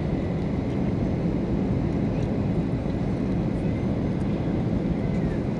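Steady cabin noise of a Ryanair Boeing 737-800 descending to land, heard from a seat over the wing, with flaps out. The engines and rushing airflow make an even, deep rumble.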